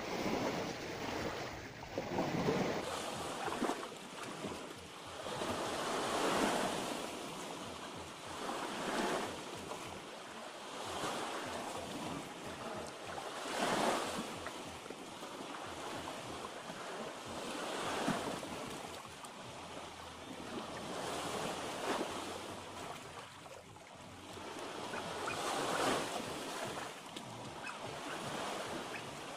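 Sea waves washing in against the shore, swelling and falling every few seconds.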